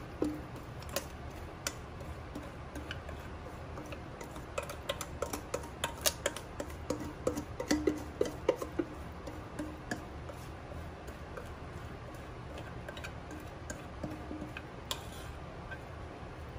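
A spatula scraping and tapping against a stainless steel mixing bowl while cornbread batter is emptied into a cast iron skillet: irregular light clicks and scrapes, busiest around the middle.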